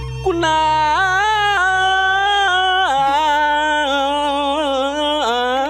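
A woman's voice singing long held notes with a wavering vibrato, stepping up and down between pitches. A faint low pulsing hum sits beneath it.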